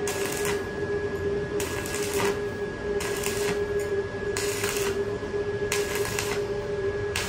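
Arc of a KOBE X220 stick welder crackling in short bursts of about half a second, roughly every second and a half, as a 4 mm electrode is dabbed along a butt joint in thin 2 mm steel. A steady hum runs underneath.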